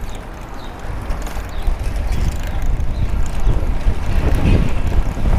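Wind buffeting the action-camera microphone, with road noise, while riding a bicycle; it grows louder about two seconds in.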